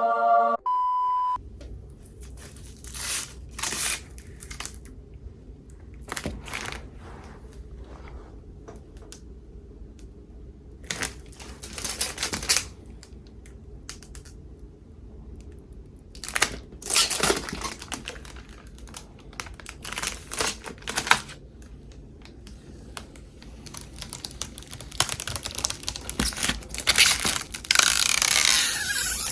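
Scattered crinkling and clicking handling noises over a low steady hum, with a short beep-like tone about a second in.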